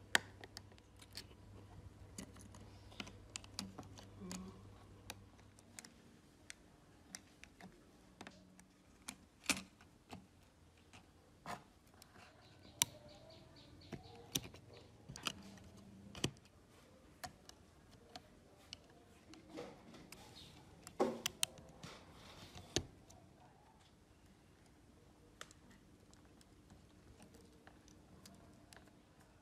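Irregular small clicks and taps of fingers and tools on the plastic and metal parts of an early iPhone being reassembled by hand, as the logic board and screen assembly are pressed into place. A quick cluster of louder taps comes about two-thirds of the way through, and the clicks thin out near the end.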